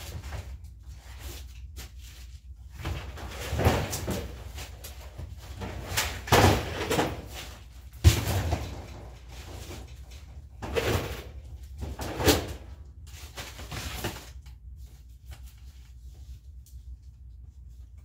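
Knocks, bumps and rustling of stored items being shifted and set down, a plastic storage tote among them. There are about half a dozen heavy bumps spread through the middle, one sharp knock among them, and quieter handling noise between.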